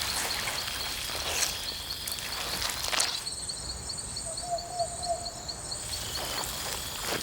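Insects calling: a high, quickly pulsing chirp repeats steadily, with a few sharp rustles early on and a short lower trill in the middle.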